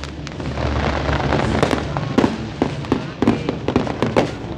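Fireworks going off in quick succession: a dense run of sharp bangs and crackles over a steady wash of noise, the bangs coming faster in the second half.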